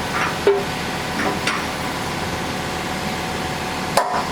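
1992 Haas VF-1 CNC vertical mill running, a steady machine hum with a constant whine, with a few short chirps and a sharp click near the end.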